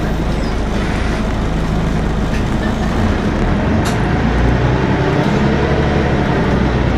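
Interior sound of a Volvo B10BLE single-decker bus on the move: its rear-mounted six-cylinder diesel engine runs steadily with a constant rumble of the body and road, the engine note climbing in the second half. A short click about four seconds in.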